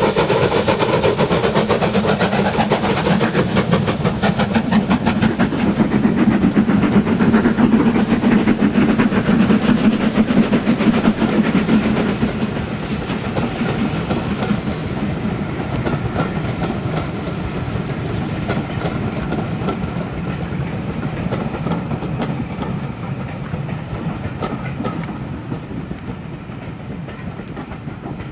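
Two steam locomotives, an S&D 7F 2-8-0 and a Black 5 4-6-0, double-heading a passenger train past at close range and working hard with rapid exhaust beats. After about twelve seconds the coaches roll by with wheels clicking over the rail joints, and the sound slowly fades as the train moves away.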